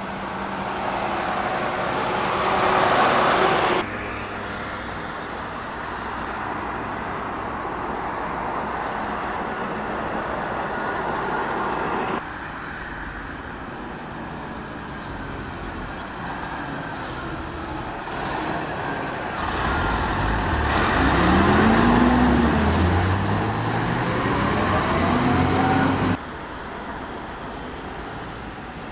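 Semi-trailer tractor units driving by with diesel engine and tyre noise. Late on, one truck pulls away: its engine rises in pitch, drops at a gear change and rises again. The traffic sound changes abruptly three times where the recording is cut.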